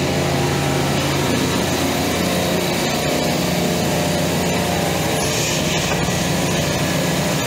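Supermarket refrigeration compressor rack running: a steady mechanical drone with a low hum underneath.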